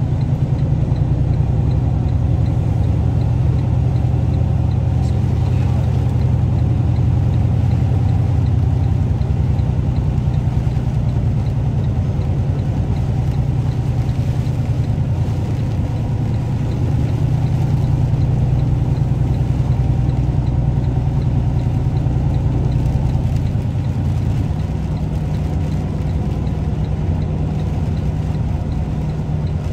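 Semi tractor's diesel engine running at low speed, a steady low drone heard from inside the cab, easing off a little near the end.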